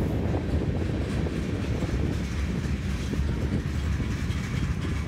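Freight cars of a fast CSX manifest train rolling past, covered hoppers and tank cars on steel wheels, making a steady low-heavy rolling noise with faint wheel clicks.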